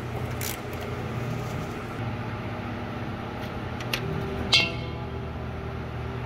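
A steady low hum with a few short clicks from a ratchet loosening a car's oil drain plug, then a sharp metallic clink with a short ring about four and a half seconds in as the oil starts to drain.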